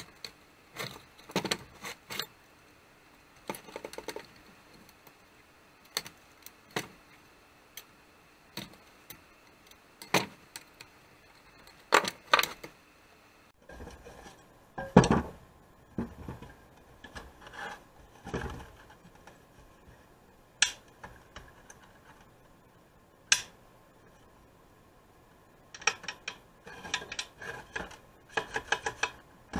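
Metal parts and hand tools clinking and knocking at irregular intervals while the housing of a 1958 McCulloch chainsaw is bolted back together, with a quick run of clicks near the end.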